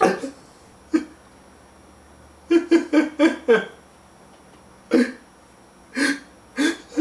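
A man sobbing in short, gasping bursts: single sobs, then a quick run of five about two and a half seconds in, then more single sobs near the end.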